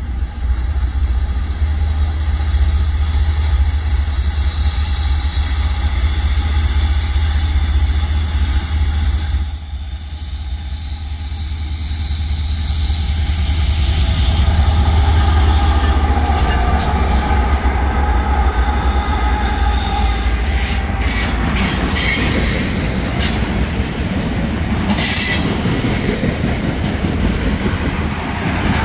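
Norfolk Southern diesel freight locomotives rumbling steadily as they approach and pass. From about two-thirds of the way in, loaded trash container cars roll by, with wheels squealing on the curve and sharp clicks as the wheels pass over the rails.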